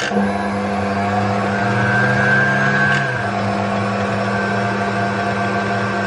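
Electric stand mixer running steadily, its dough hook turning through dry flour in a glass bowl: a constant motor hum with a higher whine. This is the dry-mixing stage of a bread dough, before any liquid goes in, so the motor is under light load.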